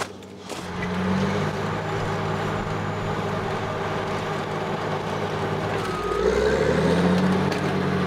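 Caterpillar crawler bulldozer's diesel engine running steadily as the machine works up a snow pile. About six seconds in, the engine note drops, then climbs again and grows louder.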